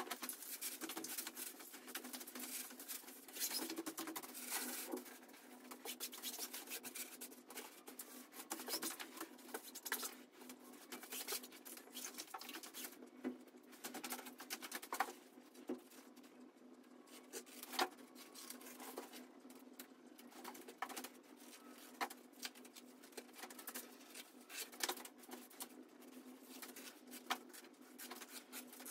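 Quick, irregular clicks, taps and rustles of hands and tools at work, over a faint steady hum.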